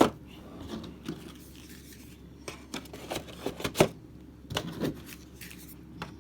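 Board-game cards and box packaging being handled and put away: scattered rustles and light clicks, with one sharp click a little under four seconds in and a cluster of clicks about a second later.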